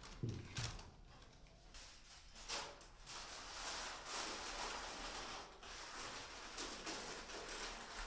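Hands-on kitchen preparation sounds: a dull thump about half a second in, then a run of irregular scraping and rustling strokes.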